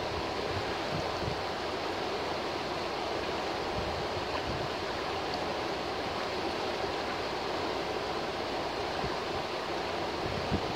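River water rushing steadily over a shallow, rocky riffle: an even, unbroken rush of white water.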